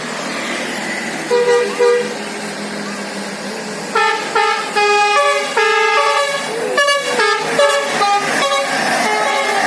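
A bus's basuri musical air horn (the Indonesian 'telolet' horn): two short chord blasts, then a fast tune of short notes changing pitch, over steady traffic noise.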